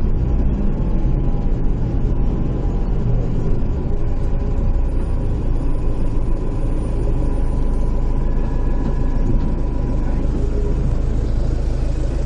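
Steady engine and road noise of a bus on the move, heard from inside its cabin.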